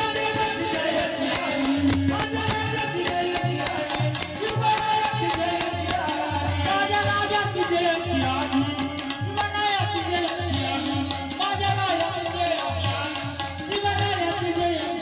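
Bhajan-style devotional folk music with a steady beat of rattling, jingling percussion over a bass pulse and a melody.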